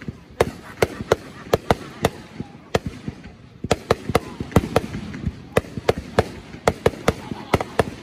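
Aerial fireworks shells bursting in a rapid, irregular string of sharp bangs, about three a second, with a lull of about a second near the middle.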